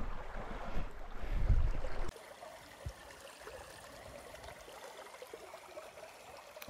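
Low rumbling of wind and handling on the microphone for about two seconds, cutting off suddenly. After that comes a faint, steady trickle of water.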